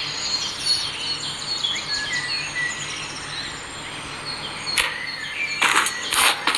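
Outdoor ambience of birds chirping in short repeated calls over a steady hiss. Near the end come a few short bursts of noise.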